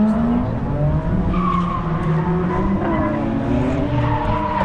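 Drift car's engine revving up and down with its tyres squealing as it slides.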